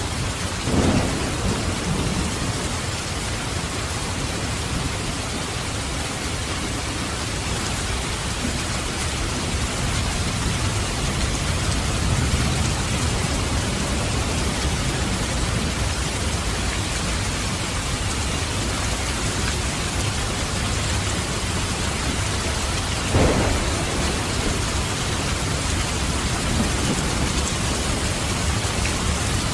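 Steady heavy rain with thunder: a sharp thunderclap just under a second in and another about 23 seconds in, each trailing off into a low rumble.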